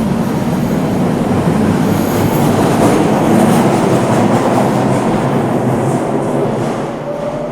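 Scarborough RT (Line 3) light metro train running on its track: a loud, dense rumble and rattle of wheels on rails with faint steady tones in it, strongest a few seconds in and easing off near the end.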